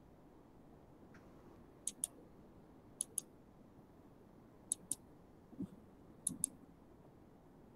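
Sharp clicks coming in close pairs, four pairs in all, a second or two apart at uneven gaps, over faint room noise.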